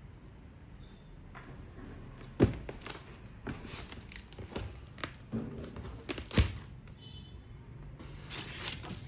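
A foam shipping box being torn open and handled: irregular tearing and crinkling rustles with scattered clicks, and two sharp knocks, about two and six seconds in.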